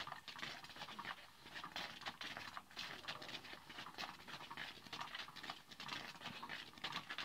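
Battery-powered Cat's Meow cat toy running, its wand sliding around under the nylon skirt: a faint, irregular scratchy rustling made of quick little clicks.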